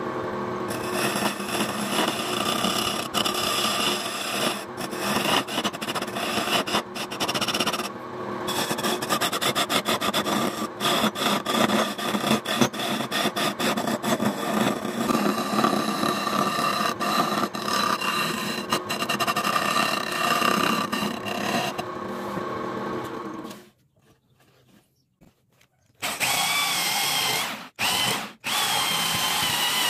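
Wooden blank spinning on a belt-driven lathe, the motor running steadily while a hand-held turning tool scrapes and cuts the wood with many small clicks; this stops about 24 s in and it goes nearly silent for a couple of seconds. Then an electric drill runs with a wavering whine, boring into the end of the turning wood, briefly easing off twice.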